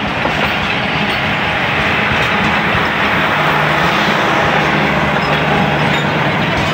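Pakistan Railways passenger coaches of a departing express rolling past close by, a loud, steady noise of wheels running on the rails with a low steady hum underneath.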